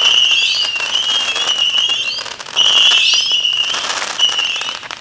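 Fireworks going off: a dense run of small crackling pops over a steady high whistling tone that cuts out and returns a few times and now and then glides upward in pitch.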